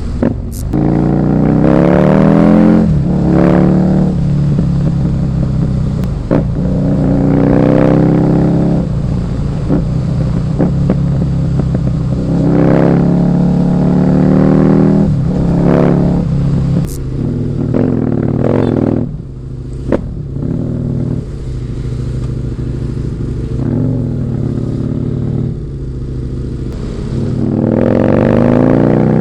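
Husqvarna Nuda 900R parallel-twin engine accelerating through the gears, revs climbing in repeated pulls, each cut short by an upshift. It eases off to a lower, steadier drone for several seconds in the second half, then pulls hard again near the end.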